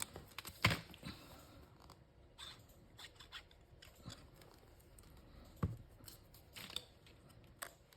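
Scattered small clicks, taps and rustles of paper card pieces and craft supplies being handled on a work surface, the sharpest just under a second in and again near six seconds.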